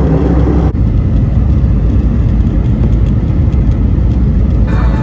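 Steady low rumble of an airliner's engines and airflow heard inside the cabin from a window seat, with the plane descending on approach over the city. The higher part of the noise drops away abruptly under a second in.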